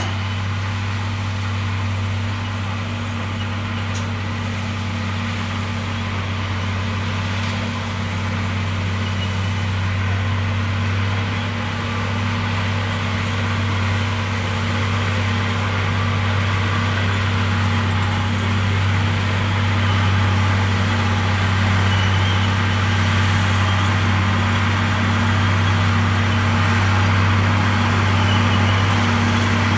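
Komatsu D58E bulldozer's diesel engine running steadily with a strong low hum, slowly getting louder.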